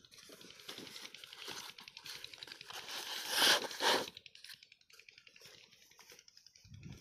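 Flat plastic lay-flat irrigation pipe crinkling and rustling as it is handled and pressed onto sand, loudest about three and a half seconds in. Softer scuffs of bare feet on sand follow.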